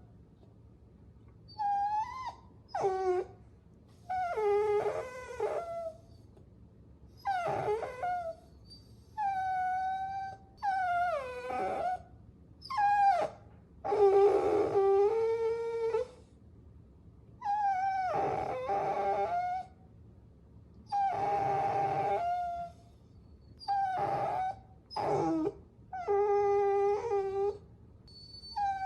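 Puppies whining and whimpering: a string of high, thin cries about a second or two long each, some sliding down in pitch, with short pauses between them.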